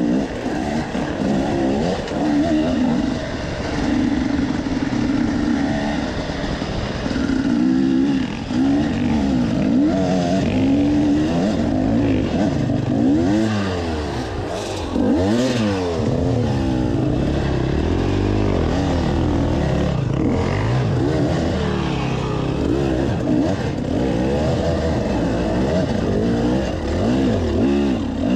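Husqvarna enduro dirt bike engine revving hard and easing off over and over on a rough, steep trail, its pitch rising and falling every second or two.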